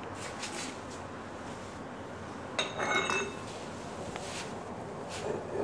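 Steel parts of a shear tool and the sheared specimen clinking together as they are handled, with one short ringing metallic clink about two and a half seconds in, plus a few faint knocks.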